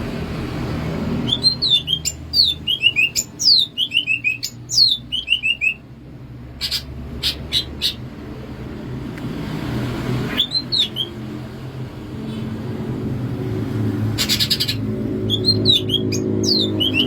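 Green leafbird (cucak ijo) singing: runs of quick falling whistled notes, a few sharp clicks and a short buzzy note, over low background music.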